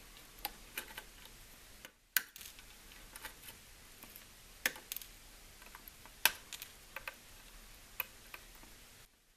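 Hakko flush cutters snipping the excess wire leads of soldered resistors on a circuit board: a string of sharp, irregular clicks, roughly one cut every second, the loudest about two and six seconds in.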